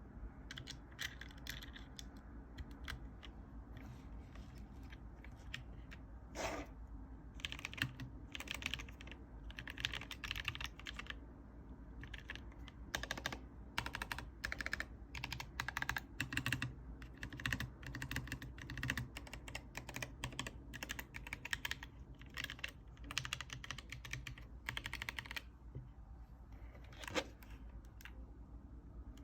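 Keychron K3 Pro low-profile mechanical keyboard with red linear switches being typed on: runs of quick keystrokes with short pauses between them. Two louder single key strikes stand out, one about six seconds in and one near the end.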